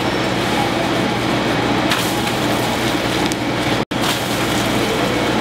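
Steady engine and traffic noise, a continuous low hum under a loud even rush, with a few faint clicks; the sound drops out for an instant about four seconds in.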